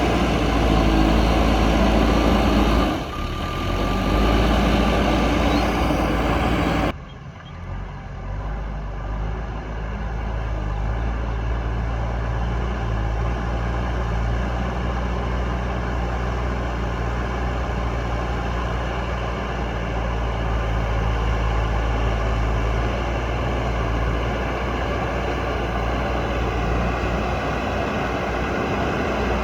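JCB backhoe loader's diesel engine running steadily under load. It dips briefly about three seconds in, drops sharply about seven seconds in, and then runs on at a lower, steadier level.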